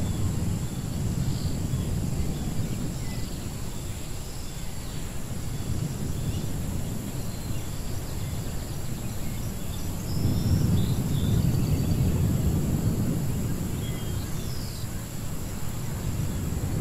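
Edited outdoor ruins ambience: a steady low rumble that swells about ten seconds in, with scattered short high bird chirps over it.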